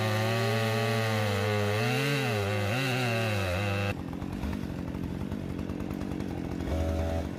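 Husqvarna chainsaw running near full throttle while cutting the felling notch in a large oak trunk. Its pitch dips twice as the chain bogs in the wood. About four seconds in the sound cuts off suddenly to a quieter rattle and handling noise as the notch wedge is worked loose.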